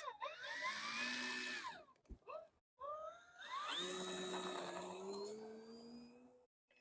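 Electric motor and propeller of an FMS Pitts 1400mm RC plane whining as the throttle comes up for takeoff. The pitch rises, drops away briefly about two seconds in, then climbs steadily again.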